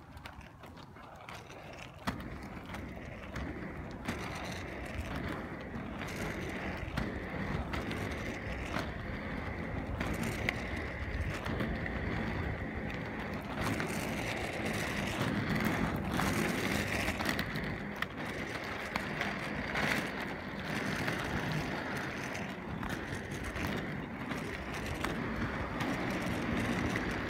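Skate wheels rolling on pavement: a continuous rolling rumble with a higher hiss, scattered small clicks, and a slight rise in level about halfway through.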